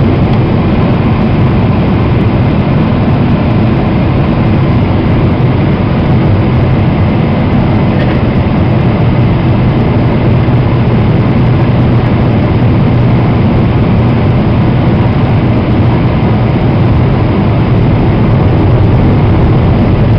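Steady, even cabin noise of a Boeing 767-300 on its landing approach: jet engines and rushing airflow heard from a window seat beside the wing, heaviest as a low rumble.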